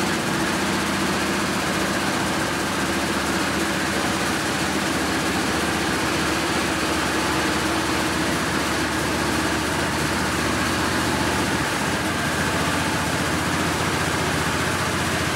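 Magic Wand Nexus touch-free car wash running its high-pressure rinse: water jets spraying against a car with a steady hiss over the low, even hum of the pump machinery.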